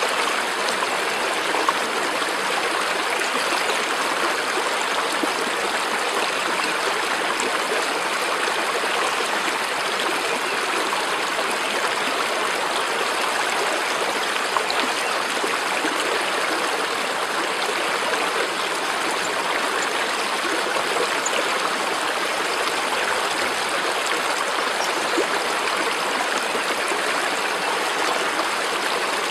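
Steady running water, like a flowing stream, rushing evenly without a break.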